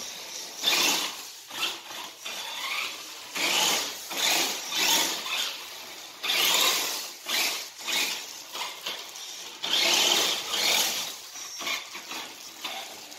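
Toy remote-control monster truck with sellotape-wrapped wheels driven across a tile floor in repeated short bursts of throttle: its small electric motor whirs and the taped wheels spin and skid on the tiles, a second or so at a time.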